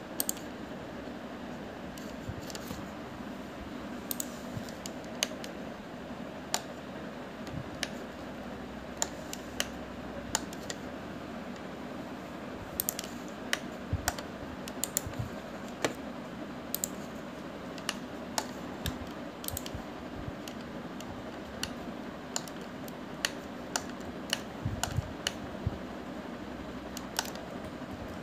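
Computer keyboard keys and mouse buttons clicking at irregular intervals, over a steady low background hum.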